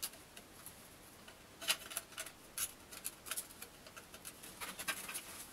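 Faint, scattered small plastic clicks and taps as a plastic bidet attachment is handled and its anti-slip pads are clipped onto it.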